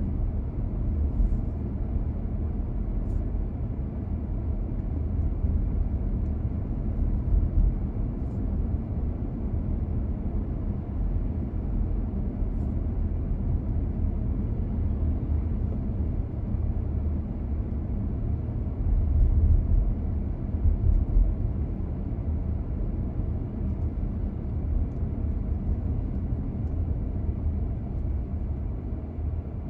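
Steady low rumble of a car being driven: engine and tyre road noise, swelling a little twice along the way.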